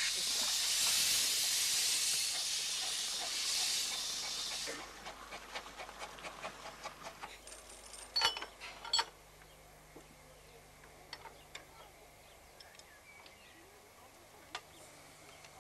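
Steam hissing loudly from a miniature steam locomotive for about five seconds, then cutting off. A run of light ticks follows, then two sharp metal clanks about a second apart as the tender is coupled to a carriage.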